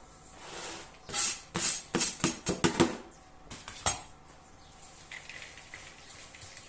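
Kitchen utensil clattering and scraping against a bowl or board in a quick run of about a dozen sharp strokes over three seconds, then quieter, as walnuts go into carrot cake mixture.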